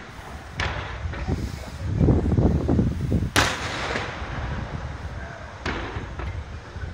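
Aerial firework shells bursting: three sharp bangs, the loudest about three and a half seconds in, with a deep rumble of bursts just before it.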